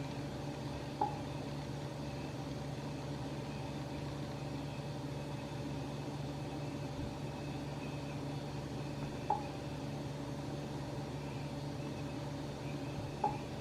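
Steady low hum of a running Samsung Family Hub refrigerator, with three short soft beeps about a second, nine seconds and thirteen seconds in as its touchscreen is tapped.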